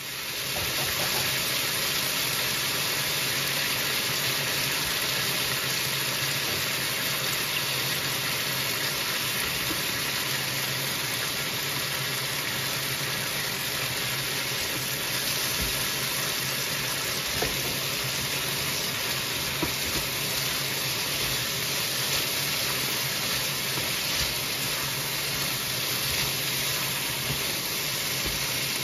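Beef and red pepper stir-frying in a hot wok, a steady sizzling hiss that comes up about half a second in and holds even, with a few faint knocks of the spatula against the pan.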